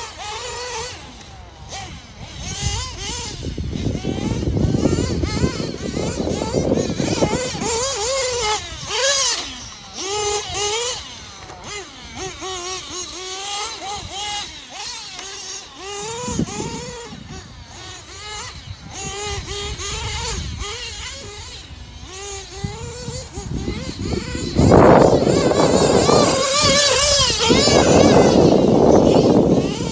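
Sirio S21 nitro RC engine with an aluminum sleeve, running in an RC truggy and revving up and down as the throttle is worked. It gets louder from about four-fifths of the way in.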